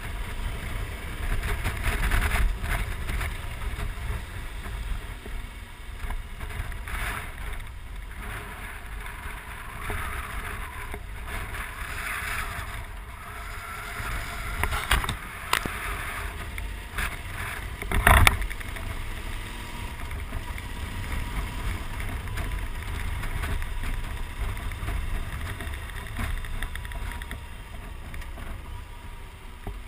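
Wind rushing over the microphone with the low drone of a Yamaha XT1200Z Super Ténéré's parallel-twin engine under way, and a sharp knock about eighteen seconds in.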